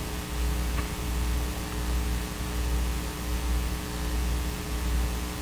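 Steady electrical mains hum in the recording: a constant low drone with a faint buzz of evenly spaced overtones above it.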